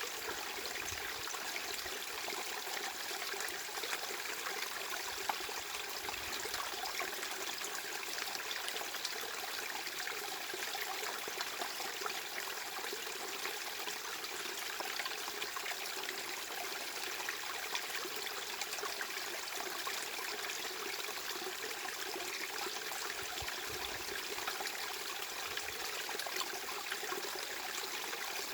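Steady, unbroken rush of running water, like a small stream, with fine splashing flecks and little deep rumble.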